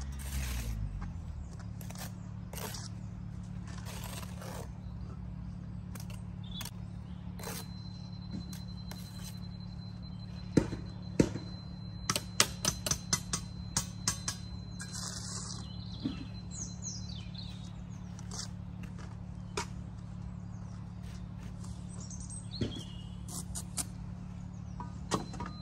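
Brick trowel tapping and scraping on concrete blocks and mortar while a block is bedded down on the footing, with a run of sharp taps in the middle, over a steady low hum.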